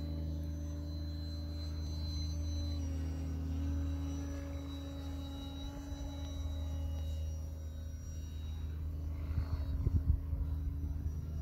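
Radio-controlled model Taylorcraft airplane's motor droning steadily in flight, its pitch shifting a little now and then. Wind buffets the microphone near the end.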